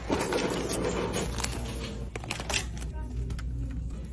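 Shop-floor sound: irregular light clicks and rattles from handling things over a steady low hum, with voices in the background.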